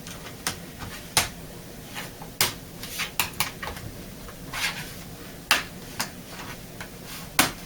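Plastic bottom access cover of a Dell Inspiron 17 laptop being handled and pressed back into place: a string of irregular sharp plastic clicks and taps with a few short scrapes, the loudest clicks about a second in, at about five and a half seconds and near the end.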